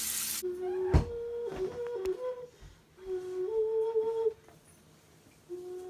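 A small flute-like wind instrument playing a slow tune of a few stepping notes, in two short phrases with a pause between. A tap runs briefly at the very start, and there is one sharp knock about a second in.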